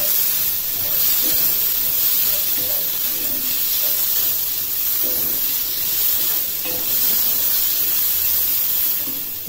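Onions and chopped tomato sizzling in hot oil in a cast-iron skillet, stirred with a wooden spatula. The sizzle runs steadily, with a dip near the end.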